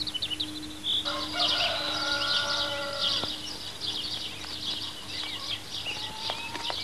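Farmyard fowl calling in a dense chattering chorus, with one short held call about a second in.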